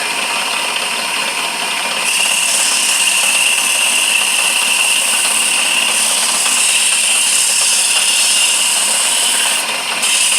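A lathe running while a spinning handle of hard wood is sanded by hand with coarse 40-grit sandpaper over a sanding sponge. It is a steady machine hum under a sanding hiss that grows louder about two seconds in and drops out briefly near the end.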